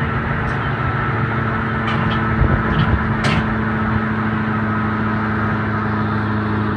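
Large wood chipper's engine running steadily at a constant speed, with a few brief ticks and knocks in the first half.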